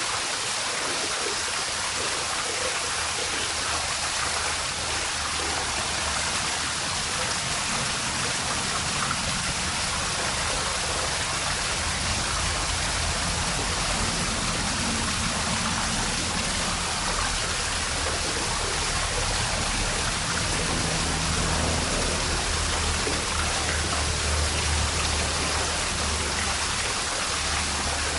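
Water spilling steadily over a pool rock waterfall about ten feet wide into the pool: an even, continuous splashing rush.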